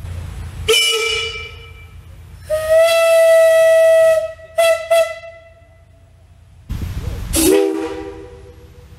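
Antique steam locomotive whistles blown on compressed air. One whistle on a single note gives a short blast, a long steady blast and two quick toots. About seven seconds in, a lower chime whistle sounds a chord of several notes that slides up as it opens.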